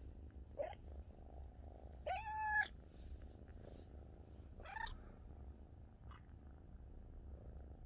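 Kitten purring steadily right at the microphone, with three short high meows, the loudest and longest about two seconds in.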